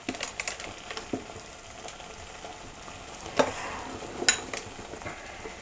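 Thick masala gravy frying softly in butter in a kadai, a low, steady sizzle, with a few faint clicks and a clink around the middle.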